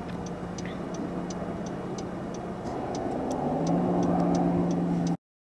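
Car's indicator ticking steadily, nearly three clicks a second, over engine and road noise. About three and a half seconds in, the engine note rises and grows louder as the car accelerates, then the sound cuts off abruptly.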